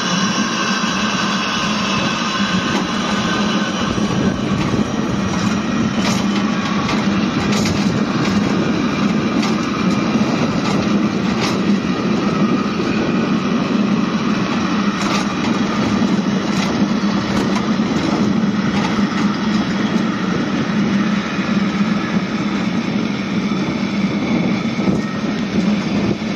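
Water-powered funicular railway carriage running down its track: a steady rumble of wheels on rails, with occasional clicks.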